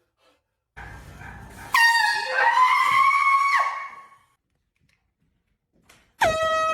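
Two air horn blasts: a loud one about two seconds in that lasts nearly two seconds and wavers in pitch, then a second, lower and steadier blast starting near the end.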